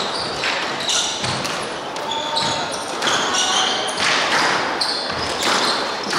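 Squash rally: the ball is struck by racquets and smacks off the walls, mixed with players' shoes squeaking on the wooden court floor.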